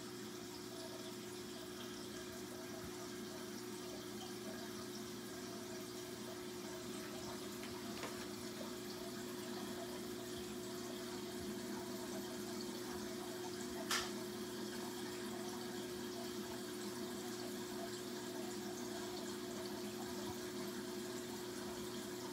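Aquarium filter running: a steady trickle and splash of water over a low steady pump hum. A single sharp click partway through.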